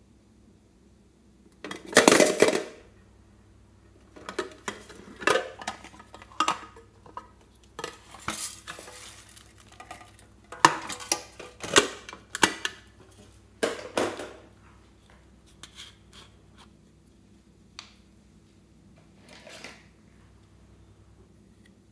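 Metal tin box being handled and opened: a string of metallic clanks, clinks and rattles as the lid comes off and knocks against the tin. The loudest clatter comes about two seconds in, with clusters of clinks through the middle and only a few light taps near the end.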